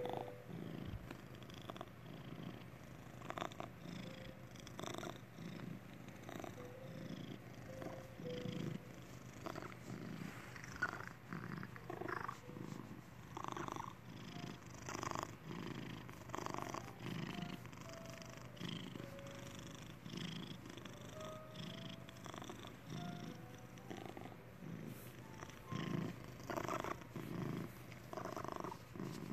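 A domestic cat purring steadily while being stroked, the purr swelling in pulses a little over a second apart.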